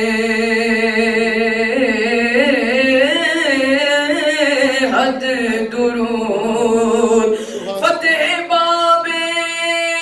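Unaccompanied young male voice singing a long, wavering melismatic phrase of an Urdu salam (devotional chant) into a microphone. About eight seconds in, the melody settles into a steady held tone.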